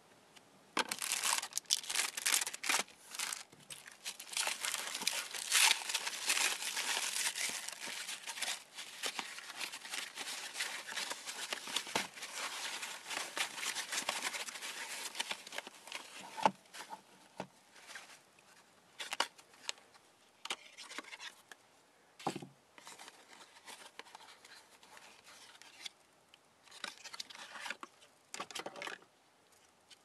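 Plastic bags and foam wrap crinkling, rustling and tearing as a boxed puzzle cube is unwrapped: dense continuous crinkling for the first half, then scattered short rustles and clicks, with one soft thump a little past the middle.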